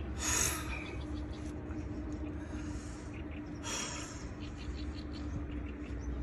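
Steady low wind rumble on the microphone with a faint steady hum, broken by two short noisy rushes, one just after the start and one a little past the middle.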